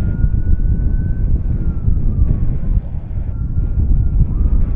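Jet airliner engines with a heavy, uneven rumble and a faint high whine that glides up in pitch and then falls away.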